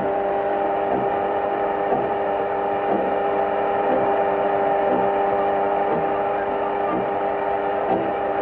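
A steady droning hum: one held pitch with its overtones, unchanging, with soft beats about once a second under it, on an early-1930s cartoon soundtrack.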